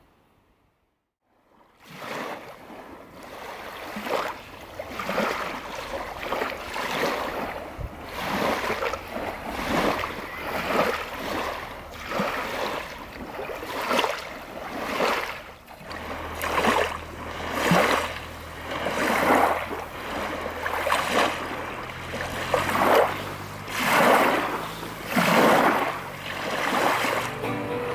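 Small waves breaking and washing up onto a sandy, pebbly shore, one after another about every one and a half seconds, starting after a couple of seconds of silence. A low steady rumble joins about halfway through.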